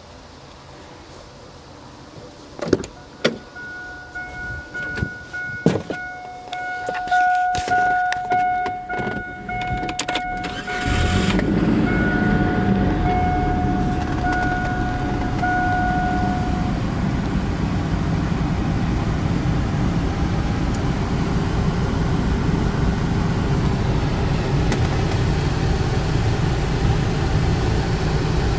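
A few clicks and knocks, then a Chevrolet S-10 pickup's dashboard warning chime pinging repeatedly. About eleven seconds in the engine starts and settles into a steady idle.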